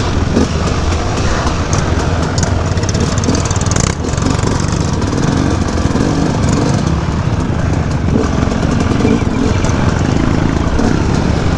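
Two-stroke KTM 250 EXC dirt bike engine running at low speed, mixed with the engines of several other enduro motorcycles riding close around it; the level stays steady throughout.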